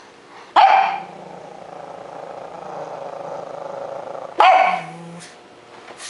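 A pug snoring: two loud sudden snorts about four seconds apart, with a steady drawn-out snore between them and a falling low note after the second.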